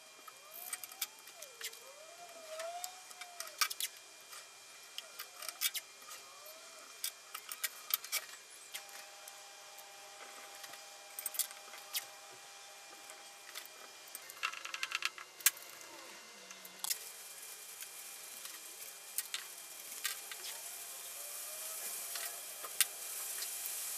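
Blue painter's masking tape being pulled off the roll and pressed onto a steel bench vice: scattered crackles, clicks and light taps of tape and hands on metal, with a quick run of clicks about halfway through.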